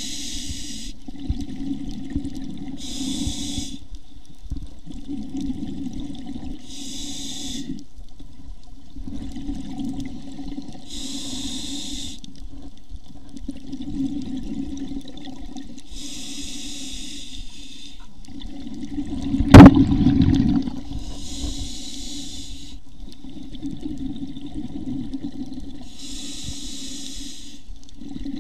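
Scuba diver breathing through a regulator, heard underwater: a short hiss alternates with longer low bubbling about every four to five seconds. One sharp knock comes about two-thirds of the way through.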